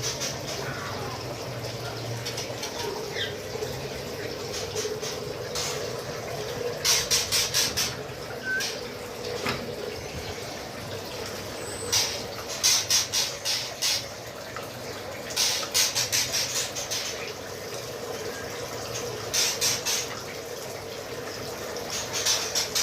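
White-rumped shamas calling in several quick runs of sharp, high chips, over a steady sound of running water.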